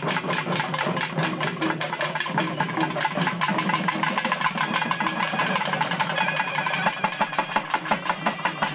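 A troupe of barrel drums played fast at a temple festival, the strokes coming in a dense, quick rhythm over a steady low drone.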